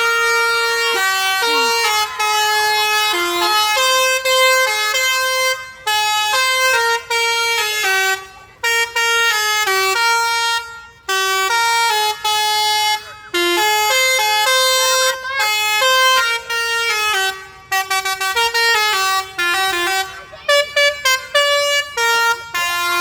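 Basuri telolet bus horn playing a tune: held notes that step up and down in pitch, broken by short pauses. Near the end it switches to a quick string of short staccato notes.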